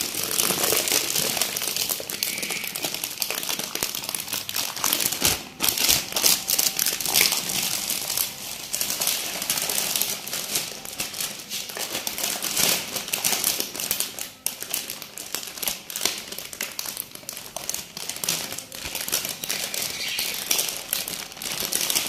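A thin plastic sheet crinkling and rustling as hands lift it and roll it over, with dense small crackles.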